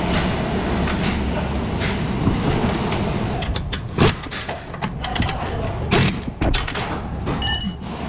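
A few sharp metallic knocks and clinks from tools or parts being handled, the last one near the end ringing briefly, over a steady low rumble.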